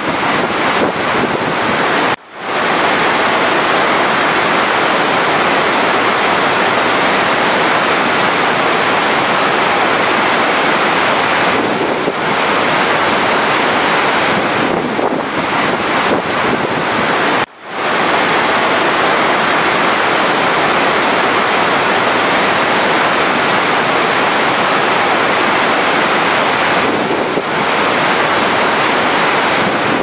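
Large waterfall, a steady heavy rush of falling water. The sound cuts out briefly twice, about two seconds in and again past the middle.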